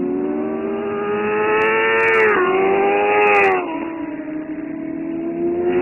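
Racing sport-bike engines accelerating hard. The engine note climbs in pitch and drops sharply twice, about two and a half and three and a half seconds in, as the rider upshifts, then climbs again.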